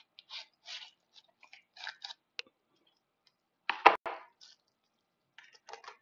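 Cardboard shipping box and bubble wrap being handled and unwrapped by hand: short scraping and rustling noises, with one louder crunch just before four seconds in as the bubble wrap comes out, then more light rustling near the end.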